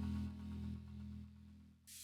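Ambient house music thinning out in a breakdown: the beat and high sounds fade away, leaving steady low held synth tones that sink to a brief near-silent dip at the end.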